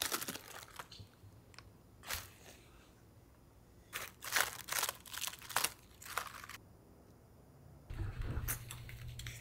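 Napa cabbage leaves snapped and torn off the head by hand: crisp crunching and tearing in short bursts, a few near the start and a cluster about four to six and a half seconds in.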